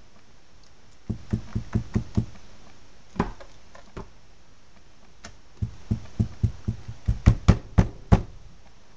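Spatula patting and pressing thick hot-process soap down into a loaf mold, making dull knocks against the mold: a quick run of about six, two single knocks, then a longer run of about ten at about four a second near the end.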